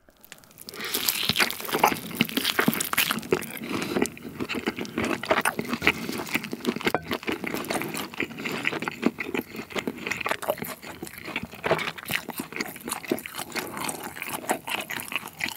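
A person biting into grilled tomahawk steak and chewing it, close to the microphone: a long, steady run of small irregular mouth clicks, starting just after the bite.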